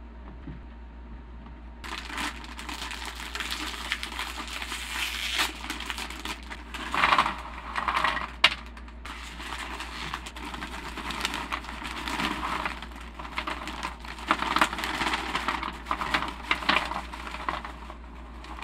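A foil chip bag of Takis crinkling as it is handled, with the rolled tortilla chips pouring out and pattering onto a metal sheet pan. It starts about two seconds in as a dense run of crackles with several louder bursts.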